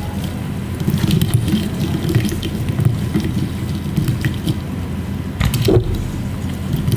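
Water running and filling a container, with scattered small clicks and one louder knock about five and a half seconds in.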